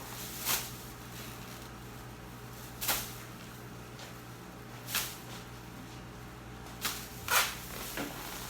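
A handful of short, sharp knocks and clacks, a second or two apart, over a low steady hum.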